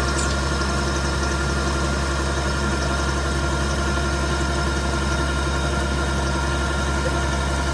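Combine harvester engine running steadily at a constant speed, with a low, even hum.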